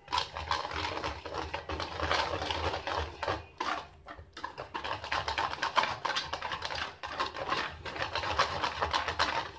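Metal spoon stirring a thick, wet spice-and-herb marinade in a stainless steel bowl, scraping and clinking against the bowl in quick, uneven strokes, with brief pauses twice.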